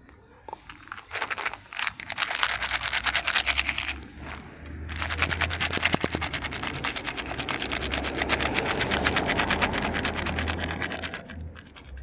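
Construction machinery hammering rapidly over a low engine drone, in two long stretches with a short break about four seconds in.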